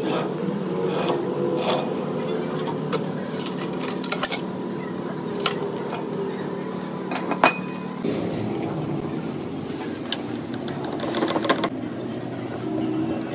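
Steady machine hum of a workshop lathe, with scattered metallic clinks and knocks as a heavy turned steel shaft is handled and set down on the lathe bed; one sharp knock stands out about seven seconds in.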